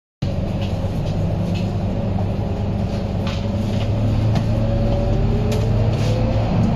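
Cabin sound of a Scania K230UB city bus on the move: its five-cylinder diesel runs with a steady low drone, a faint whine slides in pitch over it, and the interior gives a few brief rattles and clicks.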